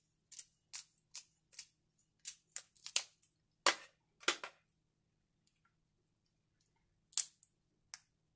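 Kitchen scissors snipping through the shell of a cooked snow crab leg: a quick run of sharp crunching snips, about two or three a second, then two louder cracks. After a pause, two more cracks near the end.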